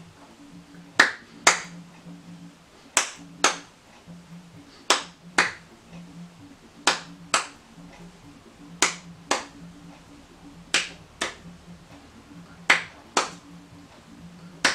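Hand claps in a steady two-beat pattern, two sharp claps about half a second apart, repeated about every two seconds, seven pairs in all. This is the clapped accompaniment for the dance.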